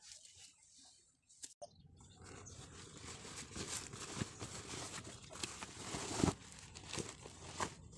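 Denim jeans being handled and turned over on a woven straw mat: the fabric rustles and rubs with scattered light knocks and scrapes, starting about two seconds in after a quiet opening.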